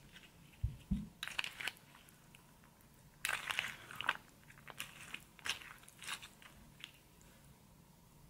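Plastic spoon stirring and scooping crunchy cereal in a creamy mix in a clear plastic bowl: a couple of soft knocks about a second in, then scattered crunches and scrapes in irregular clusters.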